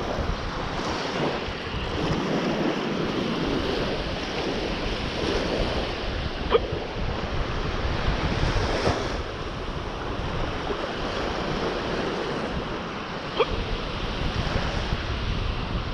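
Wind buffeting the microphone over waves washing, with two short sharp clicks, one about six and a half seconds in and another near thirteen and a half seconds.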